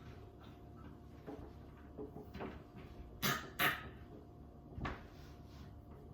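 Short scrapes and clicks of electrical cable and nylon tie wraps being handled and pulled tight. The two sharpest and loudest come a third of a second apart, a little past the middle.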